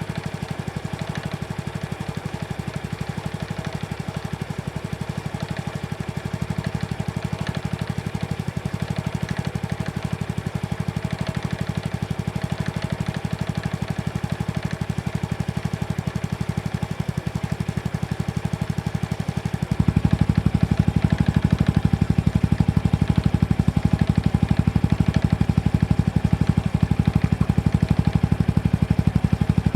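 Honda Super Cub C125's air-cooled single-cylinder four-stroke engine idling, with a light rattling tick ("kata-kata") that comes and goes at random. The owner fears this noise is abnormal. The engine sound gets louder and fuller about two-thirds of the way through.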